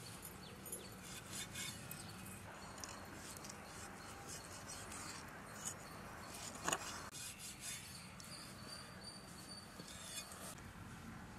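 Large curved knife cutting seer fish steaks on a wooden stump chopping block: faint scraping and light taps, with one sharper knock of the blade on the wood about two-thirds of the way through.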